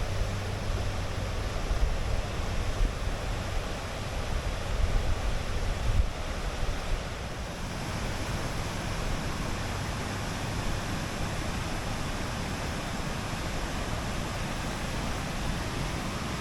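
Large waterfall: a steady, even rush of falling water. Wind buffets the microphone with low gusts during roughly the first six seconds.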